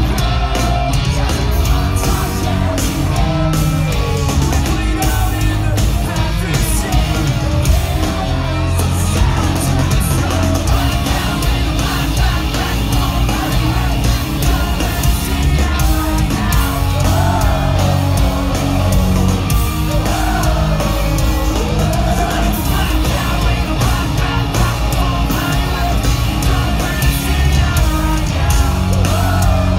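Pop-punk band playing loud and continuous live, with guitars, drums and a singing voice, in a large concert hall, heard from within the crowd.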